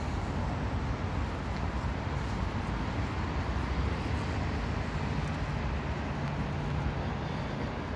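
Steady low rumble of road traffic with general outdoor background noise.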